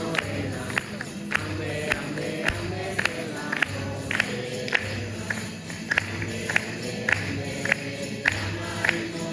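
Campanilleros group performing an Andalusian Christmas song: voices singing over instruments, with a sharp percussion strike marking the beat a little less than twice a second.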